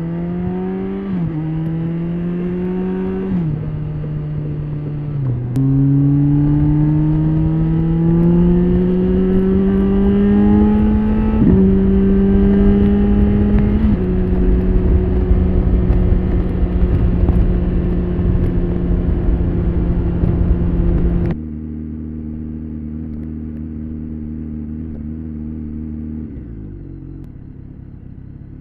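BMW K1300S inline-four motorcycle engine accelerating hard through the gears, its pitch climbing and dropping back at several upshifts, then holding steady at cruising speed, with wind rushing over the microphone. About three quarters of the way in the sound cuts abruptly to a quieter, steady engine note without the wind, which drops lower near the end as the bike slows.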